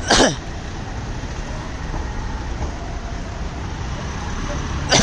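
Cars' engines and tyres making a steady low rumble as SUVs drive past. A short loud sound that falls sharply in pitch cuts in right at the start, and another brief burst comes at the very end.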